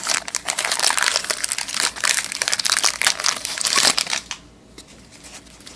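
Plastic trading-card pack wrapper crinkling as it is torn open and pulled off the cards. The dense crackling stops about four seconds in.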